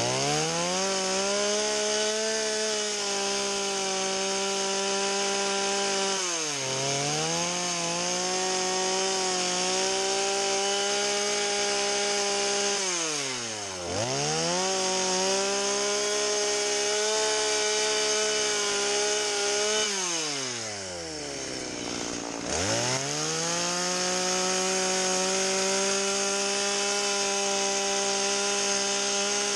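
Stihl carving chainsaw held at full throttle while the nose of the bar dabs at the wood to texture a morel mushroom cap. The engine revs up, holds a high steady pitch for several seconds, and drops back toward idle about three times, the longest dip near the end.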